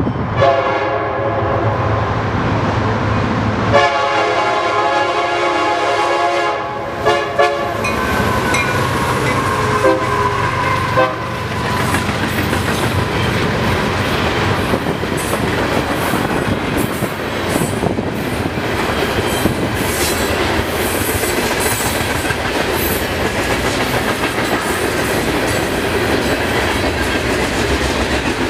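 A train horn sounds two long blasts and a couple of short ones as the CSX freight approaches. The train then rolls past: a steady rumble of freight cars with repeated clickety-clack of wheels over rail joints.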